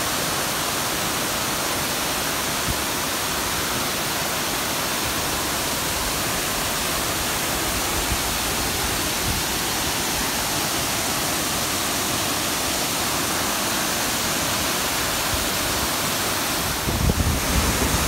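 Steady rushing roar of a tall waterfall plunging onto rocks, mixed with a shallow stream running over stones. A low rumble rises about a second before the end.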